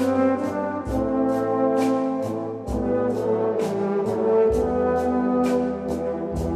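Background music: a brass-led instrumental piece with sustained horn chords and a steady beat of about two strikes a second.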